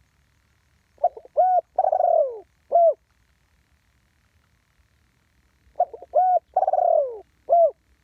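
Spotted dove cooing: two phrases about five seconds apart. Each is a couple of short coos, then a longer falling coo, closing on a single short 'kuk' note.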